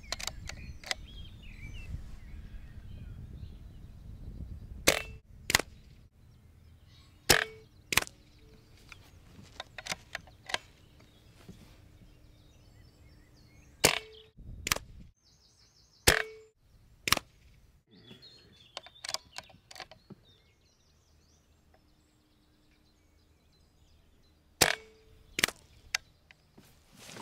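Cometa Orion BP bullpup PCP air rifle firing five shots, each a sharp crack muted by its barrel shroud, with a short ring after it. Each shot is followed by a lighter click, with a few smaller clicks between shots.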